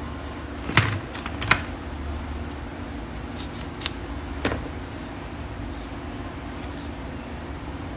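Sharp clicks and taps of craft tools and small pieces being handled and set down on a cutting mat: two sharp ones about a second in, half a second apart, and a few softer ones around three to four and a half seconds. A steady low hum lies underneath.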